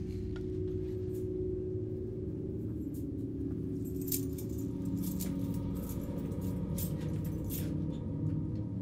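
A low, steady droning film-score pad of layered deep tones, with light metallic clinking and jangling from about four seconds in.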